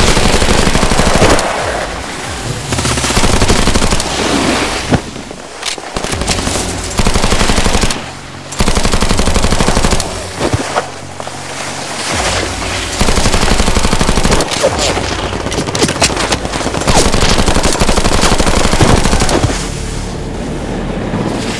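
Rapid automatic gunfire in several long bursts broken by short pauses, with music underneath.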